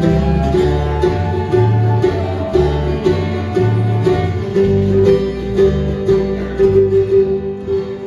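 Bluegrass band playing without singing: acoustic guitars, mandolin and banjo over alternating low bass notes, with one high note held through the second half.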